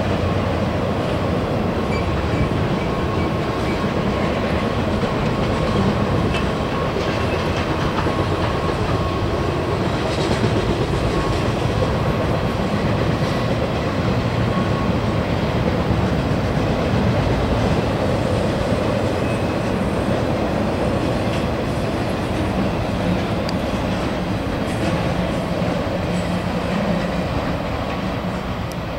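Steady rumble and clatter of freight-car wheels on the rails as a trailer-on-flatcar intermodal train rolls over a railroad overpass, easing slightly near the end.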